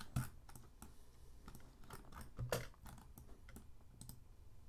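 Computer keyboard and mouse clicking at an irregular pace, about a dozen sharp clicks, two of them louder.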